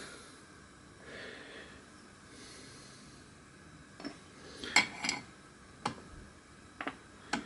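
Quiet handling sounds: a copper model boiler and its brass test fittings being moved about, giving a few short, light clicks and taps about four seconds in, a quick cluster just after, and single ones near the end. A faint breathy hiss comes in the first seconds.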